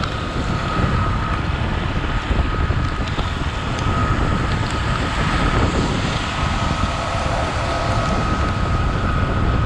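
Wind rushing and buffeting over the microphone of a hand-mounted action camera on a moving motorbike, with the bike running under it and a thin steady whine throughout.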